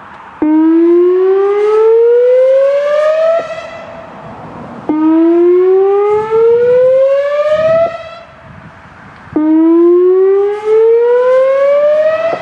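Whelen Vortex electronic tornado warning siren sounding its whoop signal in a test: three whoops, each a loud tone rising over about three seconds and then cutting off, about a second and a half apart.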